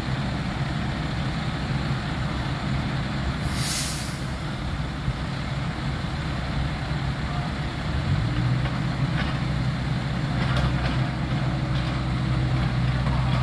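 Heavy roadwork machinery engine running steadily, with a short burst of hiss about four seconds in. About eight seconds in, the engine note rises a little and holds there.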